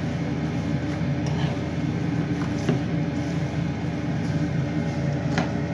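Vermicelli frying in hot oil in a nonstick frying pan while being stirred, the utensil tapping and scraping the pan about three times. A steady low hum, like a kitchen fan, runs underneath and is the loudest part.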